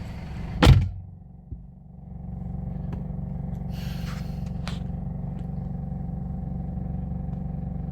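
Steady low rumble of a car heard from inside the cabin as it drives, preceded by one loud thump about a second in.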